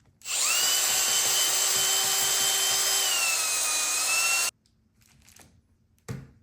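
Power drill running steadily for about four seconds with a whine that dips slightly in pitch near the end, then stopping abruptly; a short knock follows near the end.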